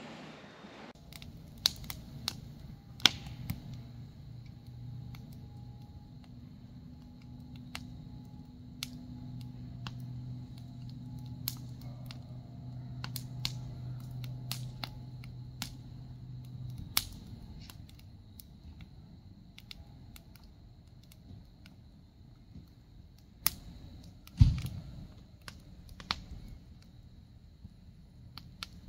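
Scattered light clicks and knocks, with a low hum that swells and then fades away in the middle and one sharp thump near the end.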